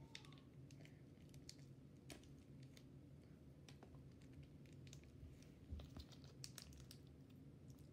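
Faint, irregular small clicks and taps of hands handling a plastic slime container, over a low steady hum, in near silence.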